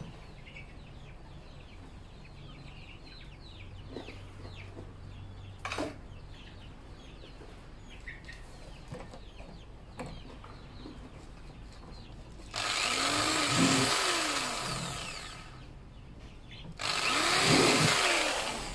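Electric drill run in two bursts of a few seconds each near the end, each spinning up and then winding down. Before the bursts there is a low background with a couple of short knocks.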